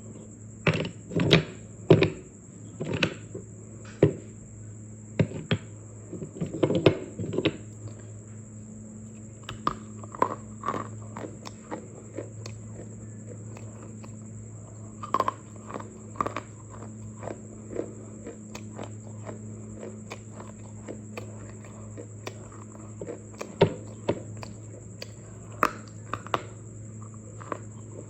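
Dry clay (matti) being crunched: irregular crisp cracks and snaps, close together in the first few seconds and more scattered later, over a steady low hum.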